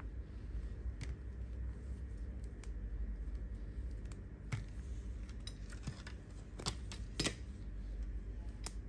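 Scattered small clicks and ticks from handling the cracked, detached screen of a Google Pixel 6 Pro, with two sharper clicks about seven seconds in, over a low steady hum.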